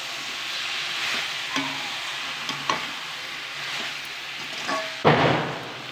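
Raw chicken pieces sizzling in onion-tomato masala in an aluminium kadai as a steel ladle stirs and scrapes them, with a few short ringing knocks of the ladle against the pan and one louder, harsher burst about five seconds in.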